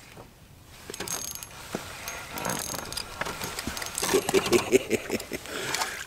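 Spinning reel being cranked to bring in a hooked fish, a rattling mechanical whir with clicks, starting about a second in. Near the end a small black crappie splashes at the surface beside the boat.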